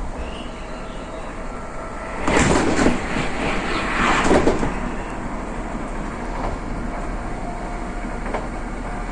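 Passenger train running, heard from inside the carriage: a steady rumble of running noise, with two louder rushing swells a couple of seconds in.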